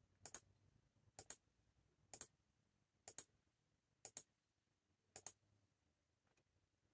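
Computer mouse button clicked six times at about one-second intervals, each click a quick press-and-release pair, pressing a generate button again and again; the clicks stop about five seconds in.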